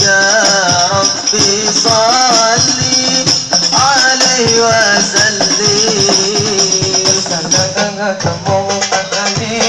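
Hadrah devotional music: a voice sings a wavering, ornamented melody in phrases over a steady beat of rebana frame drums, with a bright rattling shimmer throughout.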